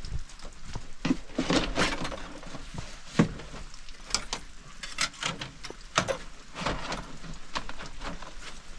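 Scattered irregular taps and knocks, a few a second, over a faint hiss of light rain.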